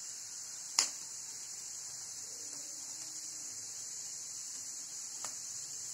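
Steady high-pitched hiss, with a single sharp click or tap about a second in and a much fainter one near the end.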